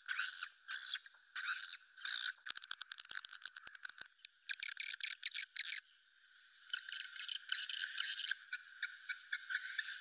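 Swiftlet roosting-call lure recording ('suara inap'), the kind played from swiftlet houses to draw the birds in to roost. High chirps come about twice a second, then a fast train of clicks around 3 seconds in. From about 6 seconds many birds twitter densely and without a break.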